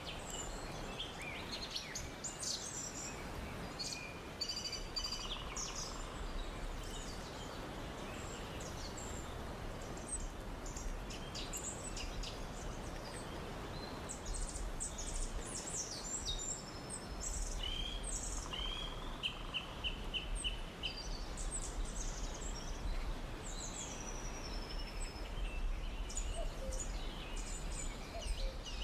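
Several birds chirping and calling throughout, with short repeated notes and quick trills, over steady background noise with a low rumble.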